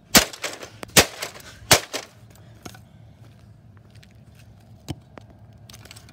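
A bat striking a smashed flat-screen TV: three hard cracking hits within the first two seconds, then a few lighter knocks, one of them near the five-second mark.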